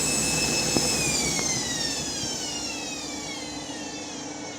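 Candy washing machine spinning down: the motor's high whine holds steady, then from about a second in falls smoothly in pitch and fades as the drum slows toward a stop.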